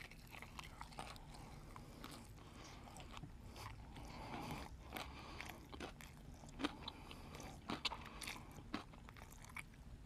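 Close-miked mouth sounds of a man biting into and chewing crispy fried chicken: a steady crunching with scattered clicks, a few sharper ones past the middle.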